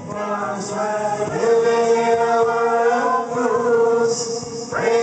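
A group of men and women singing together through handheld microphones, holding one long note in the middle before starting a new line near the end.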